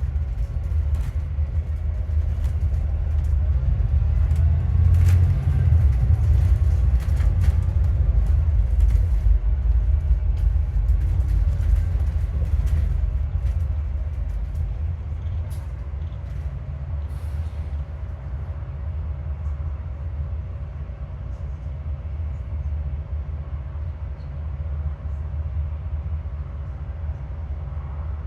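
Alexander Dennis Enviro400MMC double-decker bus heard from inside while driving: a steady low engine and drivetrain rumble, louder in the first half, with scattered rattles and clicks from the body. From about halfway a steady thin whine comes in, which the uploader puts down to a bad alternator.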